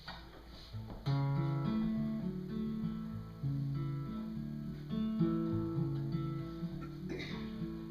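Acoustic guitar playing a song's instrumental introduction, coming in about a second in with a run of plucked chords that change every half second or so.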